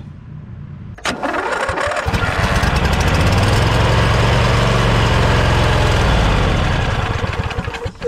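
Snapper LT 200 riding mower engine cranked by the starter, catching about two seconds in and running steadily on fuel poured into the carburetor, then dying down near the end as that fuel is used up: a sign that the fuel pump is not delivering gas.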